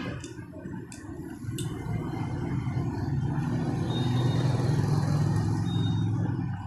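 A small single-cylinder motorcycle engine running steadily. It comes in about a second and a half in, after a few sharp clicks.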